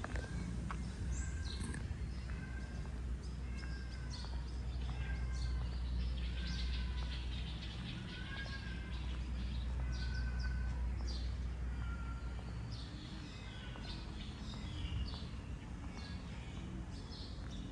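Small birds chirping and calling, with one bird repeating a short whistled note about once a second until about 13 s in, over a steady low rumble.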